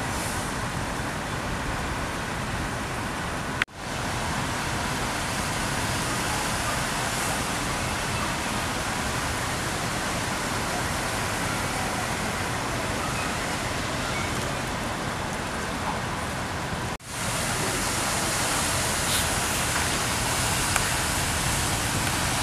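Steady wash of traffic noise from cars on waterlogged streets, tyres hissing on wet road and through standing water. The sound cuts out abruptly twice and comes straight back.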